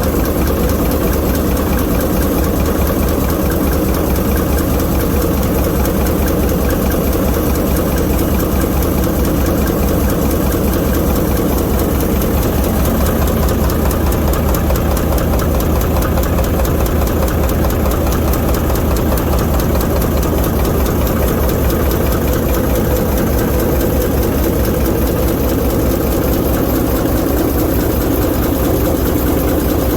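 ALCO S4 locomotive's 539T turbocharged six-cylinder diesel prime mover running steadily, with a rapid, even firing beat.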